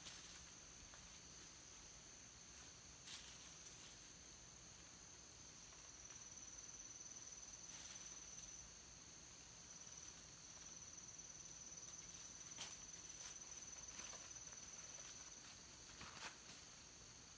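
Faint, steady high-pitched insect trill, with a few brief crackles of footsteps on dry leaves and twigs.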